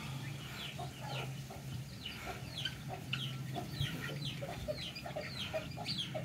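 Chickens clucking and chirping repeatedly, short falling calls two or three times a second, over a steady low hum.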